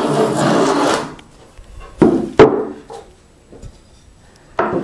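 Try plane shaving along the edge of a board in one long stroke that ends about a second in, planing the edge down to the scribe line. About two seconds in come two sharp wooden knocks close together, and another knock near the end.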